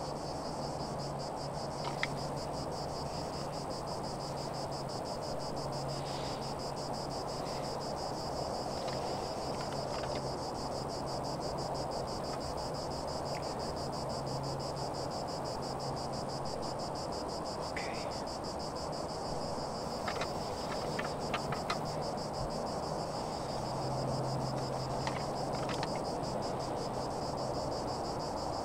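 Outdoor insect chorus: a fast, steady, high trill that runs on without a break, over a low steady hum, with a few faint ticks here and there.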